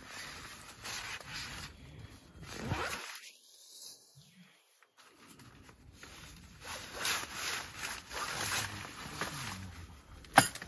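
A zipper being pulled in several strokes, with fabric rustling, then a single sharp knock near the end.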